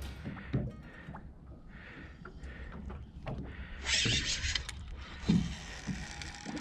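Sounds aboard a small fishing boat at sea: a steady low rumble, with water splashing against the hull in two bursts about four and five seconds in. Scattered knocks run through it, the loudest a little past five seconds.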